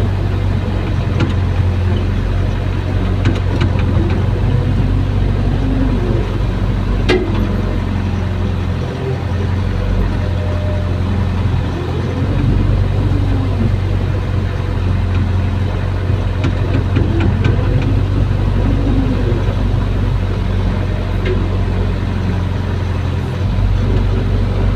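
Excavator's diesel engine running steadily under load, heard from inside the cab, with a whine that rises and falls as the boom and bucket move. A single sharp click about seven seconds in.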